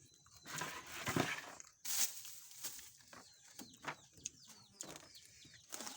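Birds calling, chicken clucking among them, with scattered short clicks and knocks.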